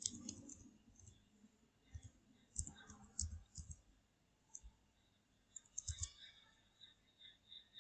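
Faint computer keyboard keys pressed now and then, a dozen or so scattered clicks, a few in quick succession about six seconds in: the Page Up and Page Down keys being pressed to move through the pages.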